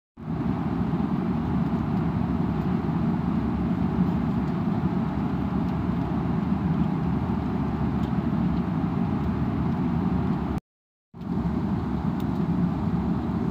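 Steady low rumble and rush of an airliner cabin in flight: jet engine and airflow noise. It drops out abruptly at a cut about eleven seconds in and resumes unchanged.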